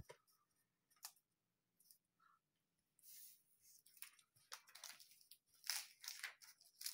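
Near silence: room tone with a few faint clicks, and faint rustling and clicking that grows busier in the last few seconds.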